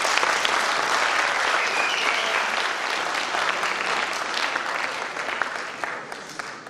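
Audience applauding, a dense steady clapping that slowly dies away over the last couple of seconds.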